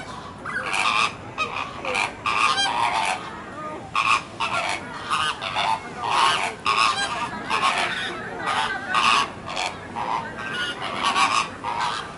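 A flock of flamingos honking: a steady, overlapping chorus of short calls, several a second.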